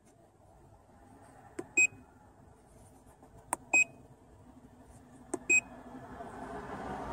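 Handheld MaxiDiag Elite diagnostic scan tool beeping as its keys are pressed: three times a button click followed by a short high beep, about two seconds apart.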